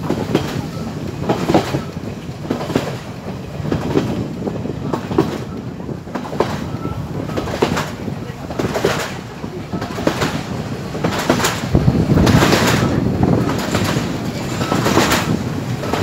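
Sri Lanka Railways Class S11 diesel multiple unit running at speed, heard from an open window: a steady rumble with repeated wheel clacks over rail joints, and wind rushing past. The rumble swells about three quarters of the way through.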